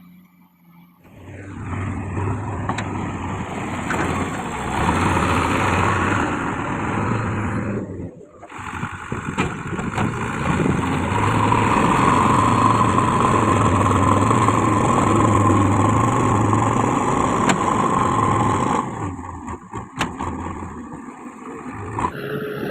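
JCB 3DX backhoe loader's diesel engine running hard under load as the machine works. It comes up about a second in, breaks off briefly about eight seconds in, and falls away near the end.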